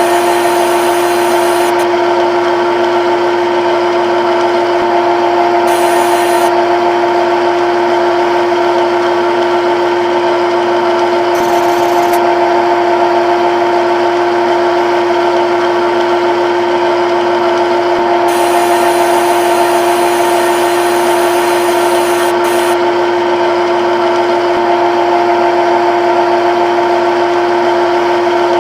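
CNC lathe running a program, its spindle drive giving a loud, steady whine, with a higher hiss that comes and goes three times.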